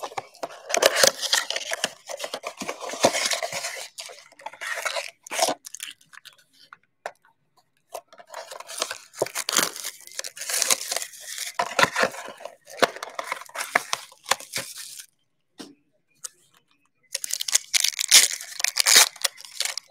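Panini Mosaic basketball card packs torn open by hand, their plastic and foil wrappers tearing and crinkling in three long spells with short pauses between.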